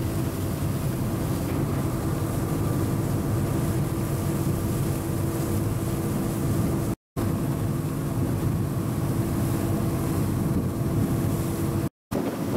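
A passenger boat's engine drones steadily, a low hum with a few held tones over the rush of water and wind. The sound cuts out briefly twice.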